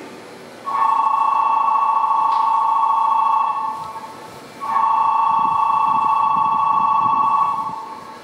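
Electronic station departure signal at the platform: a loud, warbling beeping tone sounds twice, each time for about three seconds, with a short gap between. It warns that the doors are about to close before the stopped train leaves.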